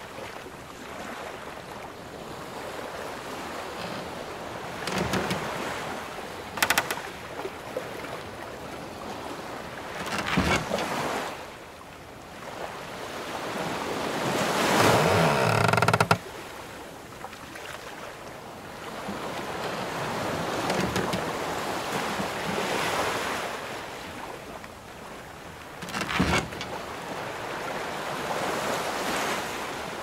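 Sea waves washing around a wooden sailing ship, with the ship's timbers creaking as it rocks. There are several separate creaks; the longest swells over a few seconds about halfway through and cuts off suddenly.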